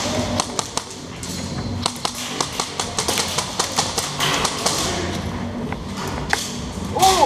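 Airsoft rifles firing single shots: sharp, irregular clicks and taps, several a second through the middle.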